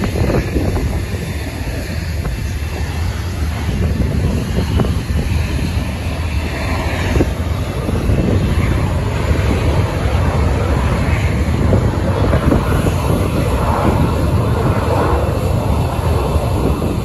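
Strong wind buffeting the microphone, with the engine noise of a business jet moving along the runway mixed in.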